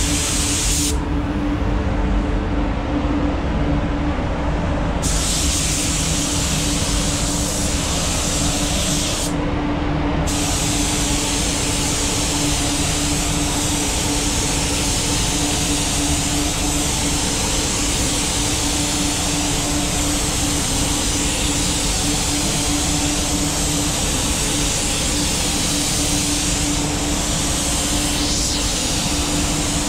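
Gravity-feed compressed-air spray gun hissing as it lays waterborne basecoat onto a car hood. It sprays for about a second, stops for about four seconds, sprays again, pauses briefly about ten seconds in, then sprays without a break. Under it runs a steady hum with a constant low tone.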